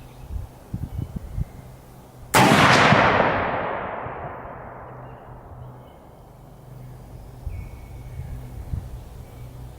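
A single rifle shot from a Romanian PSL in 7.62x54R, about two seconds in, with an echo that dies away over the next few seconds. A few low bumps come before it.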